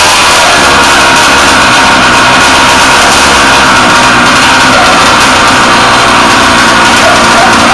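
Ported 30.5cc Zenoah two-stroke engine with a tuned expansion pipe, running loud and steady at a constant speed on its first start, while still being tuned.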